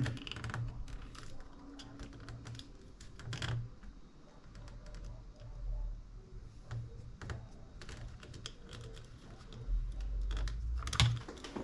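Irregular small clicks and taps of scale-model seat parts being handled and worked with a small screwdriver.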